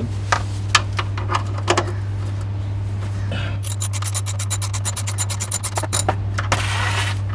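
Socket ratchet wrench working a 9/16-inch oil drain plug loose: a few separate clicks, then about three seconds of fast, even ratchet clicking from about three and a half seconds in. A steady low hum runs underneath.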